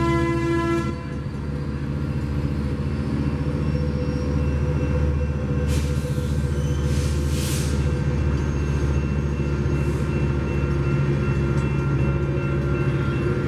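A Metrolink diesel-hauled commuter train passing at speed. Its horn cuts off about a second in, then the locomotive's diesel engine runs and the bilevel cars rumble by, with a faint rising whine and a few short hissing bursts midway.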